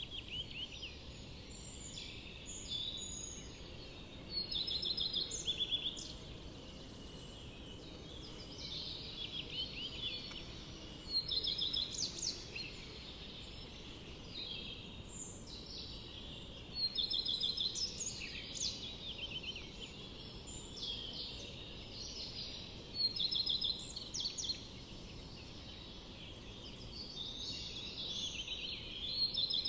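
Forest songbirds singing, with rapid trilled phrases that come in bouts every few seconds, over a steady low background rumble.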